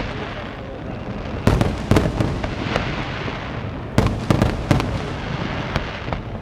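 Aerial fireworks bursting: a volley of sharp bangs about a second and a half in and another from about four seconds in, over a continuous rumble and crackle of shells.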